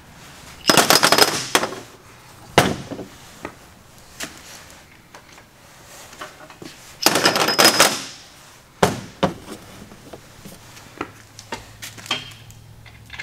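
Cast-iron engine main bearing caps clinking and clattering as they are set down one by one on a steel workbench. The loudest clattering comes about a second in and again about seven seconds in, with single sharp knocks between and after.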